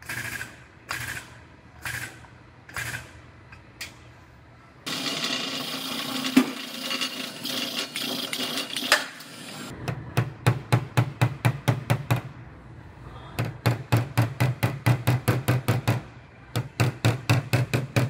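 Body hammer tapping on a car's buckled steel quarter panel to relax the buckles after the damage is pulled out: runs of quick light taps, about five or six a second. Earlier, a handful of single knocks and a few seconds of steady noise.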